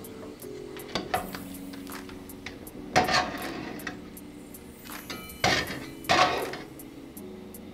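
A metal slotted spatula knocking and scraping against a nonstick frying pan while a filled crêpe is folded: four separate clatters, the loudest about three seconds in.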